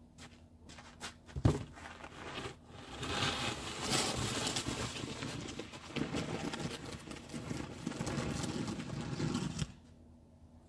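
Snow shovel blade scraping along snow-covered pavement as snow is pushed, a long rough scrape that cuts off suddenly near the end. A sharp knock about a second and a half in, the loudest sound.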